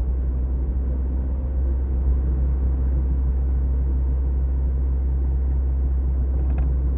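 Mazda MX-5 cruising along a country road: a steady low rumble of engine and road noise that stays level throughout.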